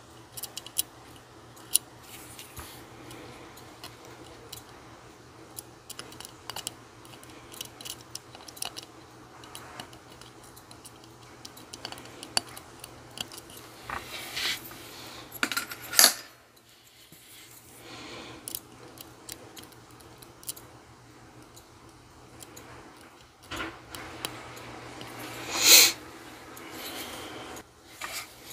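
Steel tweezers clicking and tapping as small brass wheels are set into a watch movement, with two louder brief scrapes, one about halfway through and one near the end. A steady low hum from a clothes dryer runs underneath.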